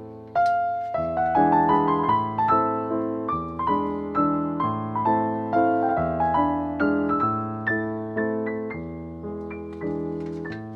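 Background music: a slow melody of single struck notes, a few a second, each ringing out and fading.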